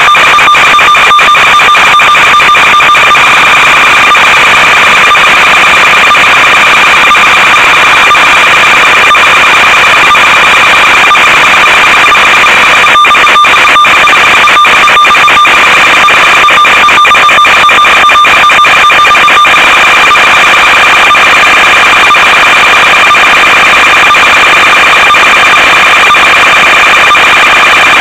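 Loud, steady electronic buzz and hiss from the analog FPV video link's audio channel, one held tone with a higher overtone. Many brief crackling dropouts break it up in the middle stretch.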